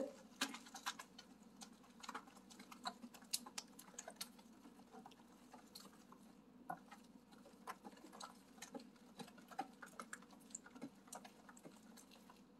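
Wooden spoon stirring a wet mix of oats, milk and egg in a baking dish: faint, irregular clicks and taps of the spoon against the dish, over a faint steady hum.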